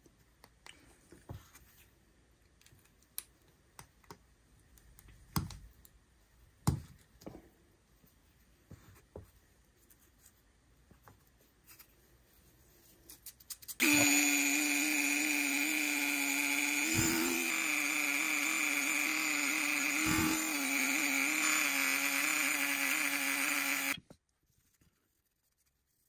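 Light metallic clicks of small pocket-knife parts being handled. About halfway through, a handheld rotary tool starts and runs at a steady high whine against a steel knife part to clean it, then cuts off suddenly after about ten seconds.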